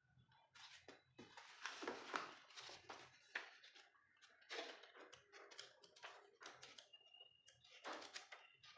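Faint, irregular rustling and light clicks from a paperback manga volume and its packaging being handled.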